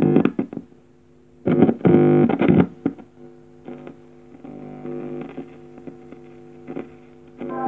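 Music played from a phone through a small homemade speaker box, coming in short loud bursts near the start and around two seconds in, then playing quieter.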